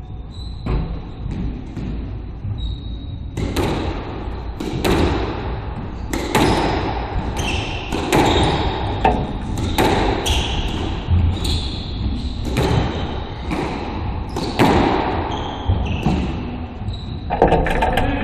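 Squash rally: the ball cracking off rackets and the court walls, a sharp hit every second or so, echoing in the enclosed court.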